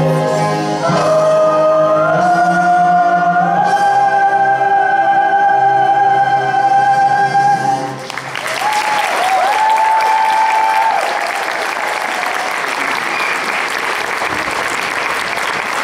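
Stage cast and chorus singing a held final chord with musical backing, stepping up in pitch twice before the last note stops about eight seconds in. An audience then breaks into steady applause.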